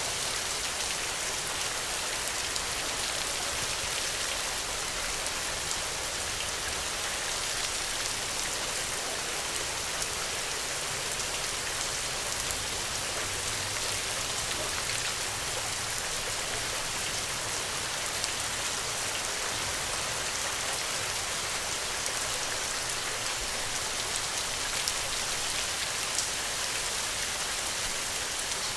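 Steady rain falling, an even hiss with scattered drop ticks and no break.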